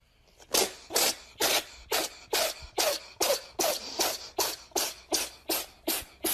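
About fifteen short, breathy hisses in an even rhythm, a little over two a second, like rapid huffing breaths.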